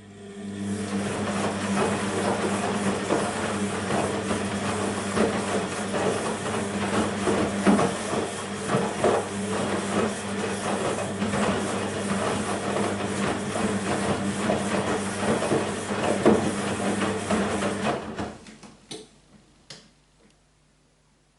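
BEKO WMB 51441 front-loading washing machine with its drum turning mid-cycle: a steady motor hum under a hissing rush with many irregular knocks from the load. It stops abruptly after about eighteen seconds, followed by a couple of faint clicks.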